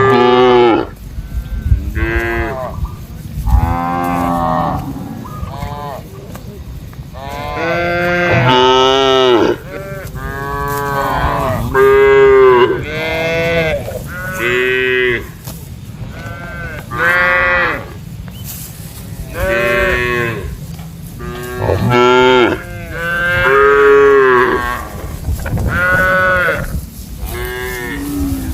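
Cows mooing over and over, about fourteen calls in turn, each a short moo of half a second to a second and a half, many rising then falling in pitch.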